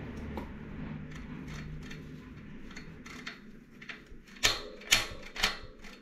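A mountain-bike rear wheel's ratchet freehub body being turned by hand: faint ticking, then three sharp clicks near the end. The freehub is broken; its spring-loaded ratchets no longer press together properly.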